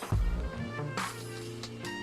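Background music with held notes, deep bass notes and drum hits.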